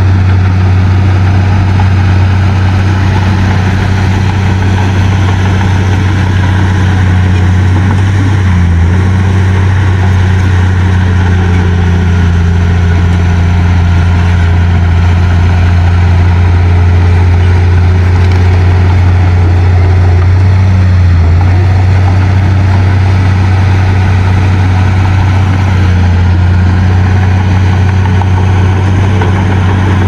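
Heavy-equipment diesel engine running at a steady speed with a loud, even drone, its note wavering briefly twice.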